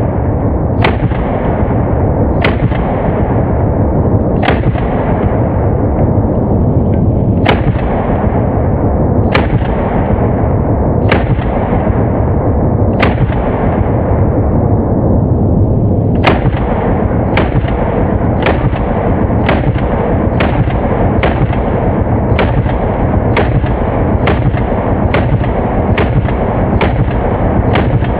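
Micro Draco 7.62x39 AK pistol firing single shots. There are about seven shots a couple of seconds apart, then a quicker, even string of about one shot every 0.7 s for the last twelve seconds, over a steady low rumbling noise.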